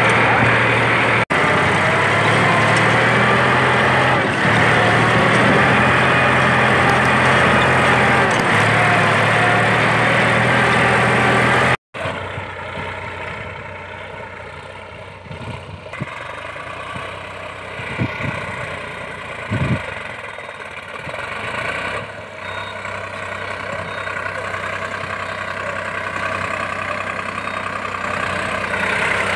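Solis 5015 tractor's diesel engine running steadily under load while pulling a tine cultivator through soil, loud and close at first. After a sudden cut it is heard from further off and quieter, with a couple of short knocks in the middle, then grows louder as the tractor comes near.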